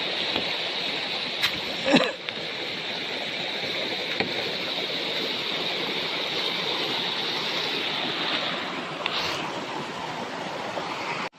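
Steady rushing of a stream, with a few short knocks. The sound cuts off abruptly near the end.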